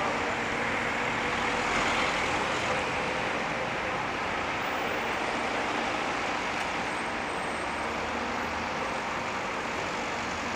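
Steady road traffic noise of cars passing close by, with the even hum of running engines.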